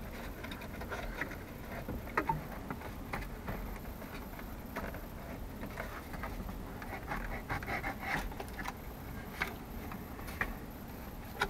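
Plastic instrument cluster bezel being worked loose from the dashboard: plastic scraping and rubbing against the dash and a cloth rag, with scattered light clicks and ticks.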